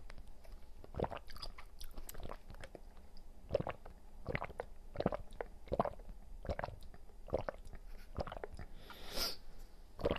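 Close-miked mouth sounds of sucking a strawberry yogurt fruit drink through a straw and chewing the fruit pieces in it: irregular wet clicks and smacks, with a longer hiss about nine seconds in.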